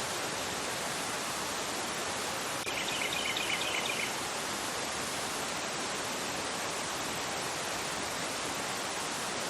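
Fast river rushing over a rocky bed: a steady, even rush of water. About three seconds in, a bird gives a quick run of high chirps lasting about a second.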